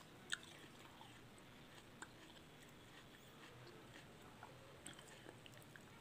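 Faint, scattered small clicks of an Alexandrine parakeet's beak biting and chewing watermelon pieces, the sharpest about a third of a second in and a few more near the end. Otherwise it is near silent.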